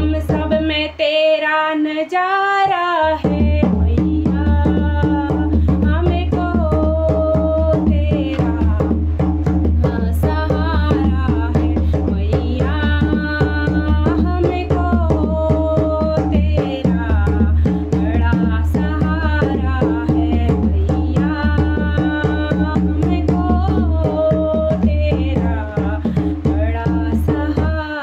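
A woman singing a Hindi devotional bhajan to the Mother goddess, with a fast, steady hand-drum rhythm and a low drone underneath.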